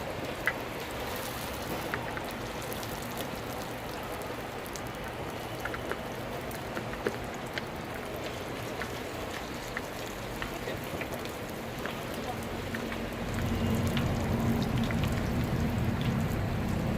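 Hotteok frying in oil on a street-stall griddle: a steady sizzle scattered with small crackles and pops. About thirteen seconds in, a low hum comes in under it.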